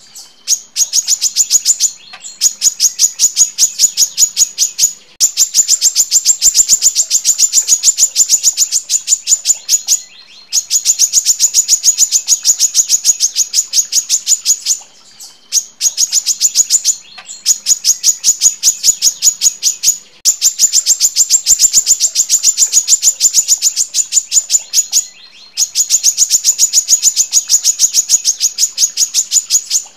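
Female brown-throated sunbird (kolibri kelapa) singing long, fast runs of sharp, evenly spaced high chirps, each run lasting several seconds, with brief pauses between runs.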